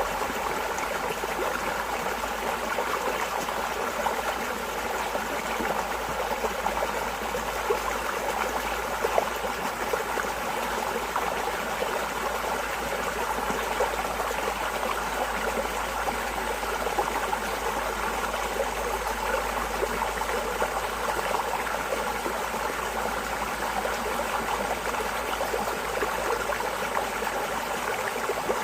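Running water flowing steadily and without pause, like a stream.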